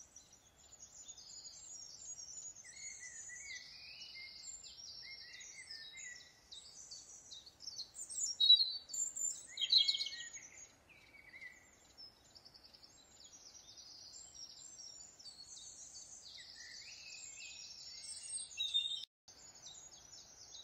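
Birds singing, many short high chirps and trills overlapping without a break, louder for a few seconds about eight to ten seconds in. The birdsong cuts out for a moment near the end, then resumes.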